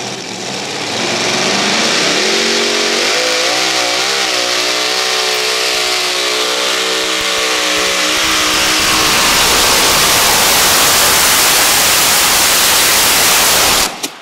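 Modified pulling tractor's multiple supercharged engines running at full throttle under load. The pitch climbs over the first couple of seconds, wavers briefly around four seconds in, then settles into a loud, steady run. Near the end the sound cuts off abruptly as fire breaks out in the engines.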